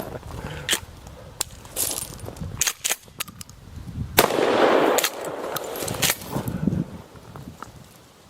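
Metallic clicks and knocks from a 12-gauge Serbu Super Shorty pump shotgun being handled, then one loud shot about four seconds in that trails off into echo.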